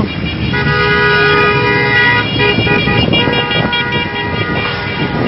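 Vehicle horns honking over steady traffic noise. A long, held horn blast starts about half a second in and lasts nearly two seconds, followed by shorter overlapping honks.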